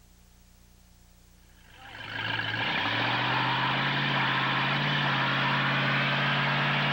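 Station wagon doing a burnout: after near silence, about two seconds in, the engine comes up to high revs and holds steady while the rear tyre spins and screeches on the pavement.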